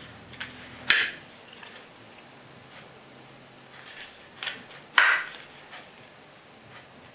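Hard plastic clicks and snaps from a polymer holster being handled: two sharp, loud snaps about four seconds apart, each with a few lighter clicks just before it.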